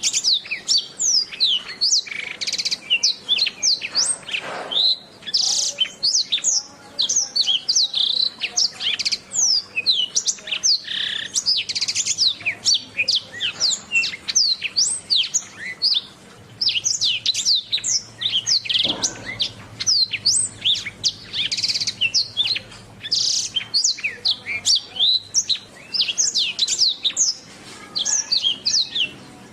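Domestic canary singing a long, fast run of high, quick down-slurred notes and trills, with only brief pauses.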